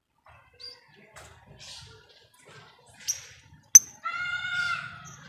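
Lovebirds calling in short, scattered high chirps, then one longer call held for about a second near the end. A sharp click just under four seconds in is the loudest sound.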